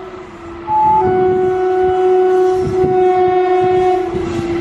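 WAG-7 electric locomotive's horn sounding a long steady blast, quieter for the first second and then loud again. Near the end the rumble and rattle of the locomotive passing close by builds up.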